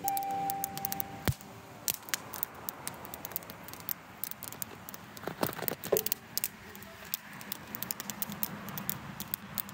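The last note of a vintage Stella mandolin rings for about a second and stops, followed by a knock. After that come scattered sharp pops and crackles of a campfire, with a short cluster of knocks from the phone being handled about halfway through.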